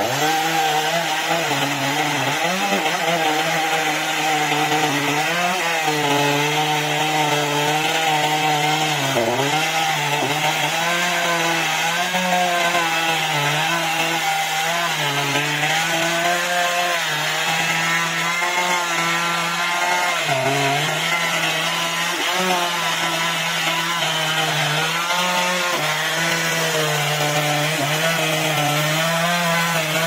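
Chainsaw running at high revs and cutting through wood, its pitch sagging briefly several times as the chain bites under load.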